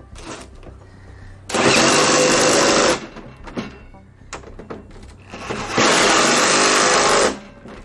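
Cordless impact driver running bolts into a seat's mounting brackets in two bursts of about a second and a half each, the first about one and a half seconds in and the second near the end, with rattling handling noise between.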